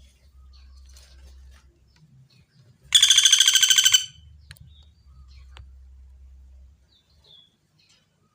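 Common flameback woodpecker (pelatuk bawang) giving one loud, rapid rattling call of about a dozen notes, lasting about a second, starting about three seconds in. A few faint high chirps come before and after it.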